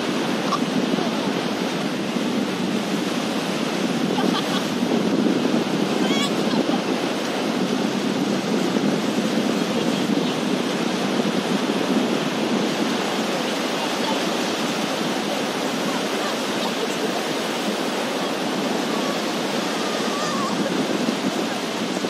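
Ocean surf breaking and washing up a sandy beach: a steady rush of waves.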